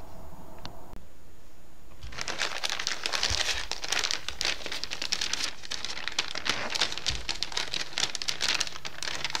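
Anti-static shielding bag around a motherboard crinkling as it is handled, a dense run of crackles starting about two seconds in.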